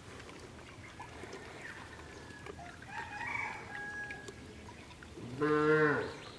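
A cow lowing once near the end, a single short moo of under a second. Fainter farmyard animal calls come a little after halfway.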